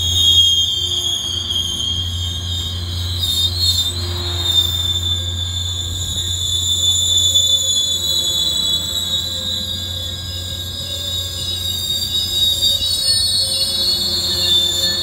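Caltrain commuter train rolling slowly into the station and braking to a stop, giving a steady high-pitched squeal over a low, steady hum.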